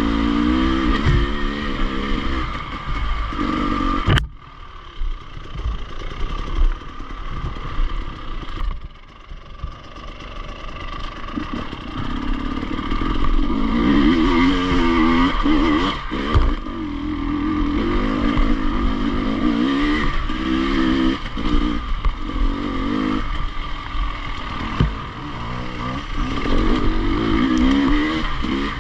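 Enduro motorcycle engine revving up and down under load, with clattering. It drops away after a sharp click about four seconds in and picks up again from about nine seconds.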